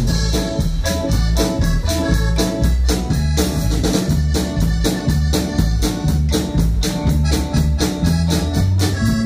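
Live band playing an instrumental piece with a steady drum beat, with drum kit, congas, electric bass, electric guitar and keyboard.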